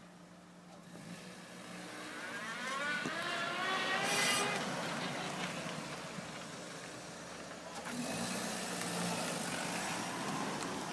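Vauxhall Astra 1.6 moving off at low speed, with a whine that rises in pitch for a couple of seconds and then falls away. A second build of noise comes near the end. This is the metallic rattle the owner hears from the car and that three dealer visits have not cured.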